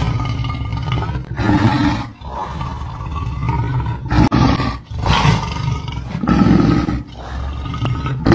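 Lion roaring again and again, deep roars one every second or two.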